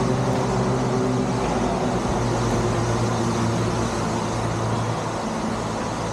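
Road traffic noise with the steady low hum of a nearby motor vehicle's engine.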